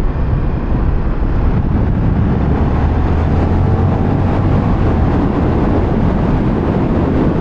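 KTM 1390 Super Duke R's V-twin engine running while the bike is ridden, mixed with heavy wind rush on the microphone. A steady low hum holds through the middle.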